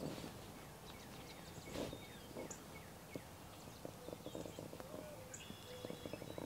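A tobacco pipe being lit: soft puffs and lip pops as the smoker draws on the stem over the flame, thickest in the second half. Faint bird chirps are heard in the background.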